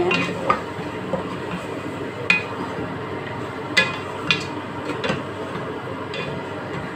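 Wooden spatula stirring raw lamb chunks and dry spices in a metal pot, knocking against the pot's sides now and then in a few sharp, uneven clacks over a steady hiss.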